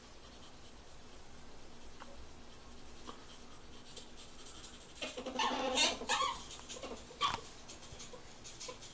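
Ferret vocalizing while mating: after a quiet stretch, a run of short calls about five seconds in, lasting just over a second, then one sharp call about seven seconds in.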